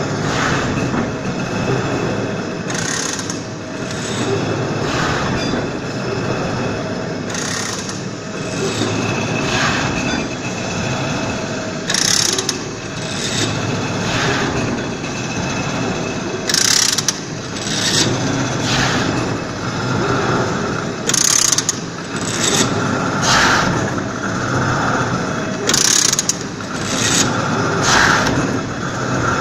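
Horizontal veneer slicer running, a steady loud mechanical clatter of gears and moving parts. A short, sharp, brighter burst comes every few seconds, in step with the machine's working strokes.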